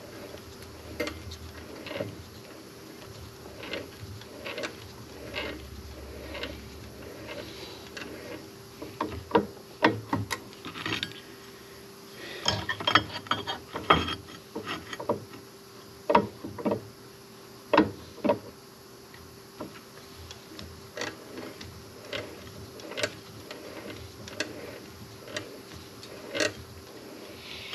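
A drill running at a steady pitch while a small part is drilled through on a wood block, with many irregular clicks and knocks from the part and tools being handled.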